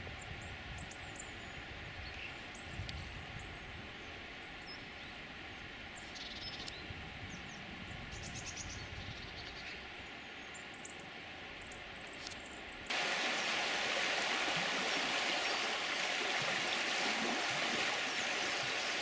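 Small birds chirping with short high calls over a low background rumble; about thirteen seconds in, the sound cuts abruptly to the steady, louder rush of flowing stream water.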